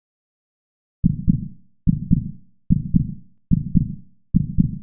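Heartbeat sound effect: low, muffled double thumps (lub-dub), five of them evenly spaced about 0.8 s apart, starting about a second in.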